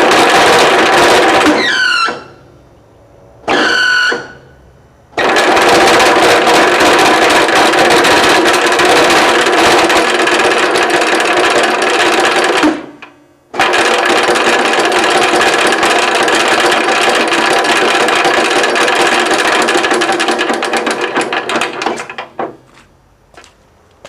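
Three-phase electric air compressor, run with its oil drained and piston rings already broken, started and stopped four times: it runs with a loud clattering hum, winds down with falling pitch after the two short runs, and the long last run fades out gradually near the end.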